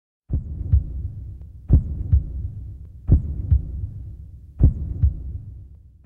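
Heartbeat sound effect on the soundtrack: slow paired lub-dub thumps, four pairs about a second and a half apart, the last one fainter and fading out.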